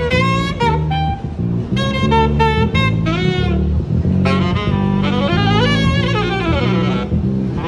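Live jazz-funk duo of saxophone and electric bass: the saxophone plays short, clipped phrases over a steady electric bass groove, then a longer, busier run about four seconds in.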